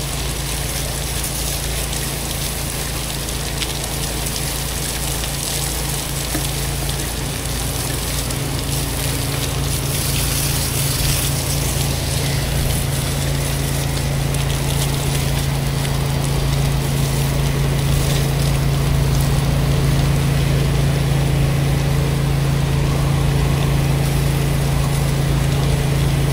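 Pressure-washing rig running steadily, its engine and pump hum under the hiss and splash of the water spray rinsing down a wall and windows. Gets a little louder from about ten seconds in.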